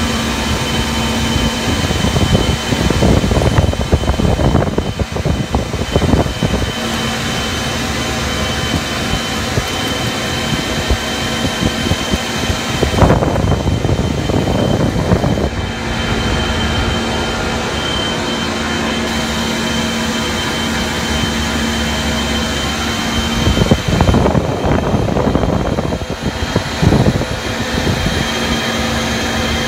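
KC-135 flight-deck noise in the climb after take-off: a steady roar of jet engines and rushing air with a thin high whine and a low hum running under it. The noise swells louder and rougher three times, a few seconds in, around the middle and near the end.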